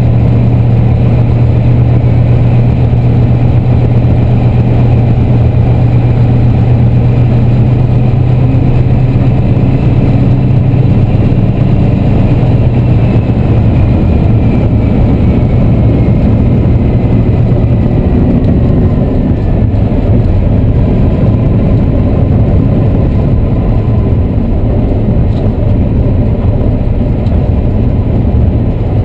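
Class 14 diesel-hydraulic locomotive's Paxman Ventura six-cylinder diesel engine running under power, heard from inside the cab as a loud, steady low drone. About halfway through the engine note changes and a high whine glides slowly down in pitch, then holds a steady tone.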